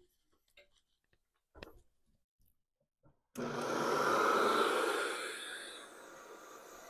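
A few faint handling clicks, then about three and a half seconds in the vintage Hoover Model 115 upright vacuum's motor switches on with a sudden start, loudest at first and then settling into a steady run. It is running with the drive belt off, so the brush roll is not turning, and the motor bearings sound a little bit dry.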